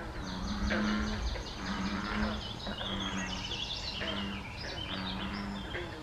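Pond frog chorus: a deep, drawn-out frog call repeated about five times, roughly once a second, with rapid high-pitched chirping trills above it.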